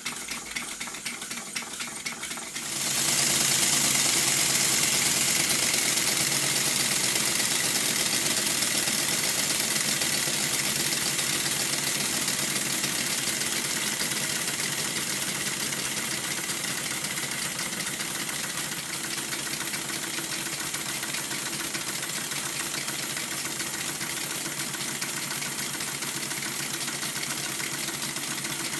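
Five Stuart model steam engines running together on compressed air: a fast, even clatter of exhaust beats over a steady hiss of escaping air. About three seconds in the sound jumps louder and more hissy, then stays steady.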